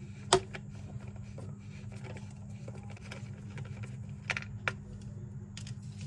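Nut driver and plastic RC truck wheel clicking and ticking as a 7 mm wheel nut is unscrewed by hand: a sharp click about a third of a second in, two more a little after four seconds, and fainter ticks between. A steady low hum lies underneath.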